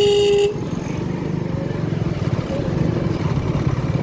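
Motorcycle engine running steadily while riding through traffic, with a vehicle horn honking once for about half a second at the start.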